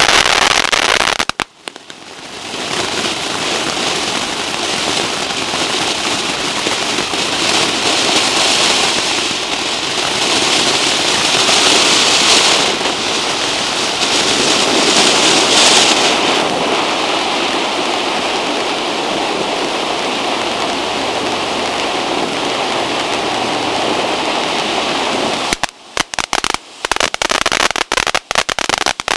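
Two Electric Butterfly large ground-fountain fireworks spraying sparks with a steady, loud hissing rush. About a second and a half in, the sound briefly drops away and then builds back. Near the end it turns to rapid sharp crackling.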